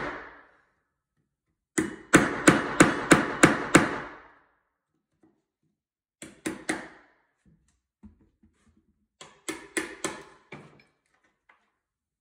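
Claw hammer striking a wood chisel, cutting the mortise for a key lock fastener plate into a wooden newel post: a quick run of about seven blows a little after the start, three lighter ones past the middle, and five more near the end.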